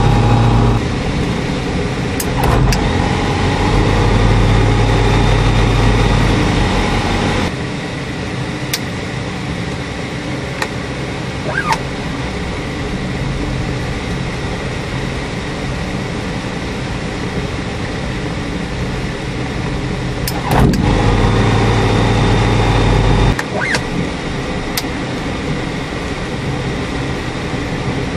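Rotax 912 four-cylinder aircraft engine heard from the cockpit, running loud and steady, then dropping abruptly to a lower steady drone with rushing air about seven seconds in. It comes back up suddenly for about three seconds near twenty seconds in, then drops again. A few brief clicks are scattered through.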